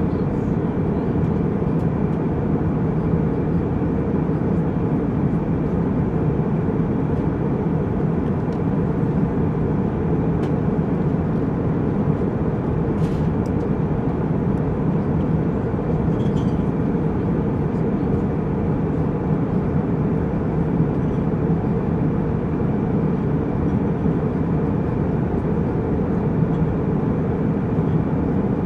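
Jet airliner cabin noise in flight: the steady, low-pitched drone of the engines and airflow, with a couple of faint ticks about halfway through.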